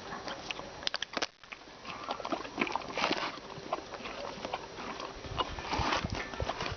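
A horse making a funny noise: a run of sharp clicks, then short breathy rushes of sound, loudest about three seconds in and again near the end.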